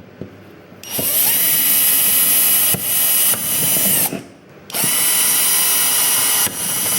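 Handheld power drill running in two bursts of about three seconds each, spinning up at the start of each, with a short pause between, as it bores holes.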